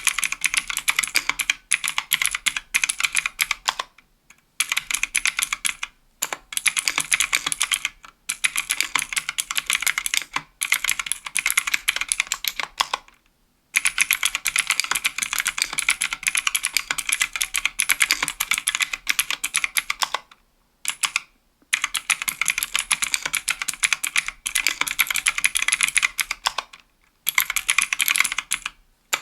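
Fast typing on a 60% aluminium mechanical keyboard with Kailh Pro Light Green clicky switches (50 g) and GMK keycaps: a dense run of crisp, high clicks, in bursts of a few seconds broken by short pauses.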